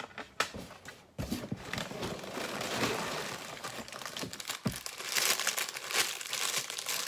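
Plastic LEGO parts bags crinkling and rustling as a hand rummages among them inside a cardboard box, with a few light knocks. It starts about a second in and gets louder in the second half.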